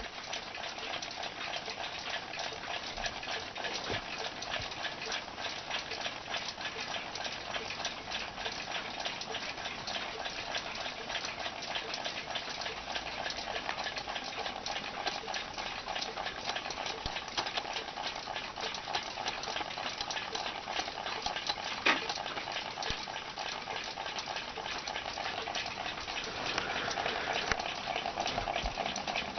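Remington rolling-numbers alarm clock running: a steady fine crackle and whir from its mechanism, with one sharper click about 22 seconds in.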